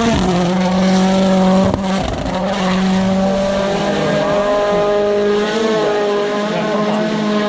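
WRC rally car's engine running at high revs as the car goes through the stage. The pitch drops with a gear change at the start, there is a sharp crack from the exhaust about two seconds in, and the engine then holds a high, fairly steady note.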